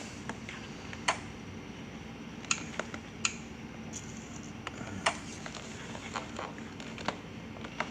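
Scattered light clicks and taps from handling a phone and working at an open dishwasher, about six of them at irregular gaps, over a steady low hum.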